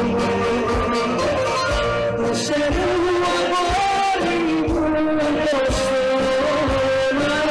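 Municipal philharmonic wind band playing live: a melody of held, gliding notes over low drum strokes.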